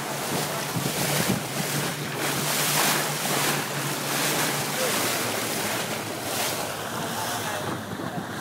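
Wind buffeting the microphone and water rushing and splashing past the hull of a moving boat, in repeated gusty swells, over a low steady engine hum that drops away about six seconds in.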